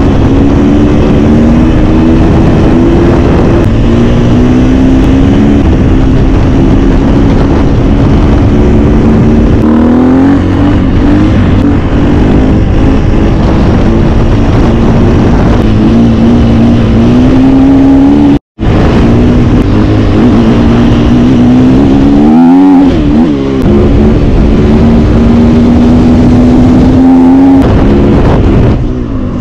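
KTM 350 EXC-F single-cylinder four-stroke enduro engine running hard, ridden in wheelies. The revs are held fairly steady, then climb and dip as the throttle is worked, with a brief dropout just past halfway.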